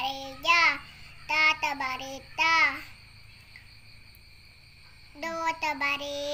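A child reading Arabic letter-syllables aloud from an Iqra 2 primer in a sing-song chant, each syllable drawn out. The voice pauses for about two seconds in the middle, leaving a faint steady high tone, then resumes near the end.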